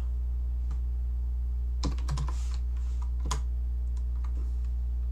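Computer keyboard typing: scattered keystrokes, a few at a time with pauses, the busiest cluster about two seconds in, over a steady low hum.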